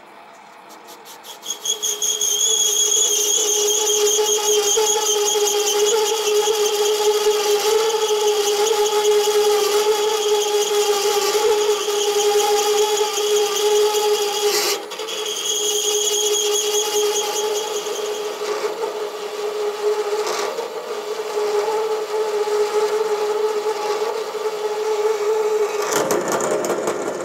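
Parting tool on a Sieg SC4 mini lathe cutting into a spinning cast-iron piston under the cross-slide fine feed, chattering with a loud steady squeal that sets in about two seconds in. The machinist blames the chatter on the work having no tailstock support and the chuck not being tight. Near the end there is a harsher rattling burst, and then the sound cuts off.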